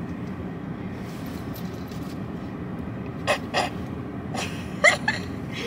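Steady hum of a car's cabin. A few short sharp sounds come about three seconds in, and a brief voice sound near the end.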